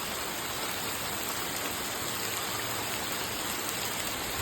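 Heavy rain pouring down, a steady even hiss of rain falling.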